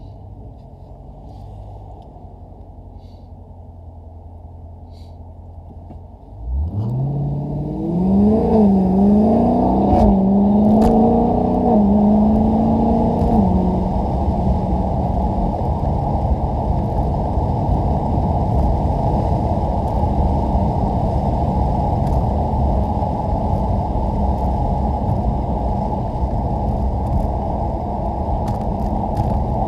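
Dodge Challenger 392 Scat Pack's 6.4-litre HEMI V8 through a mid-muffler delete with Dynomax Mini Bullet resonators. It starts about six seconds in with a sharp rise in revs, wavers up and down for several seconds, then settles into a steady idle.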